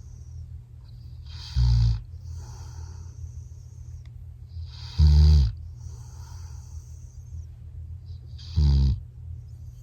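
Labrador retriever snoring: three loud snores about three and a half seconds apart, with softer breathing between them.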